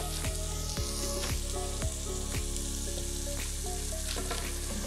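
Bacon sizzling steadily as it renders in a Dutch oven. A chef's knife knocks on a wooden cutting board about every half second while leeks are trimmed.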